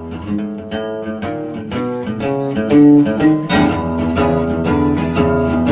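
Background music on plucked guitar, notes picked one after another at a steady pace.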